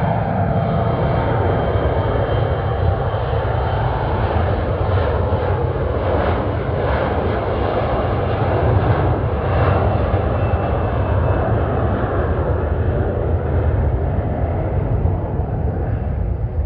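Embraer regional jet's turbofan engines at takeoff power: a loud, steady jet rumble with a faint whine over it as the airliner takes off.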